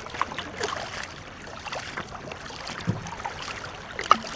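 Paddles dipping and splashing as a crew paddles a war canoe, with water swishing and dripping. There is a sharp knock near the end.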